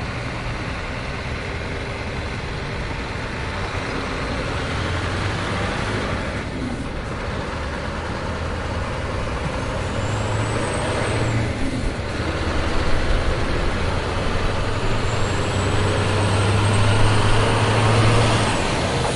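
Truck-like engine running steadily, growing louder in the second half, with a faint high whine sliding up twice.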